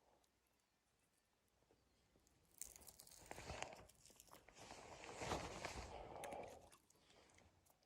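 Faint crunching and rustling, in two spells starting about two and a half seconds in and about five seconds in.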